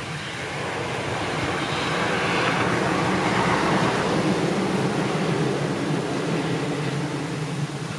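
Electric train of the JR Minobu Line running past on the rails: a steady low hum and running noise that grows to its loudest about halfway through, then fades away.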